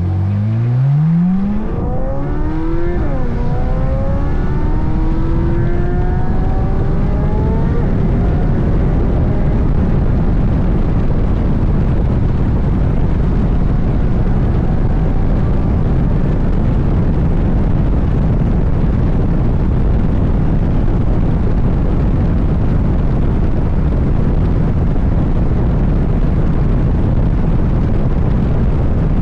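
C8 Corvette Z06's flat-plane-crank V8 accelerating hard, its pitch climbing and dropping back at upshifts through the first several seconds. It then gives way to a loud, steady rushing noise at speed.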